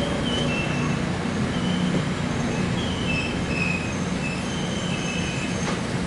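Open box wagons of a freight train rolling past at speed, a steady rumble broken by many short, high-pitched squeals from the wheels.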